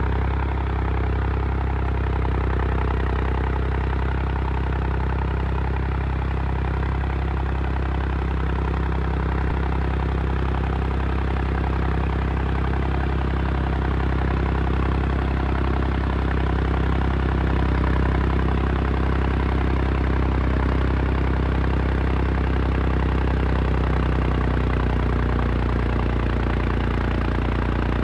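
John Deere 5310 tractor's three-cylinder diesel engine running steadily at about 1300 rpm under load, pulling a cultivator through the soil.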